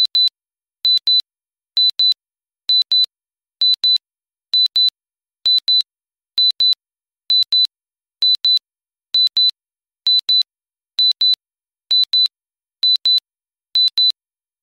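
Countdown-timer alarm of simple electronic beeps: high-pitched double beeps, one pair about every second, signalling that the timer has reached zero.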